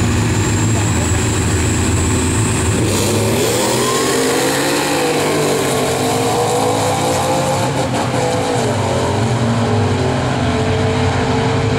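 Supercharged 2011 Ford F-150 5.0 V8 and a Cummins diesel Dodge pickup drag racing. The engines run steadily at the start line, then launch about three seconds in, the pitch climbing and dropping through the gear changes as they pull down the strip.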